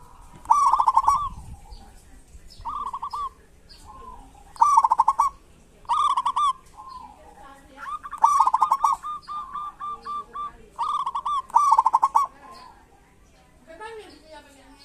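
Zebra dove (perkutut) calling in about seven bursts of rapid, stuttering notes, each burst lasting half a second to a second and a half.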